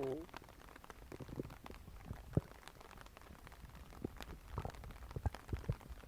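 Stomach gurgling between growls: a wavering growl trails off right at the start, then scattered small pops and clicks follow, with one sharper pop a little before halfway.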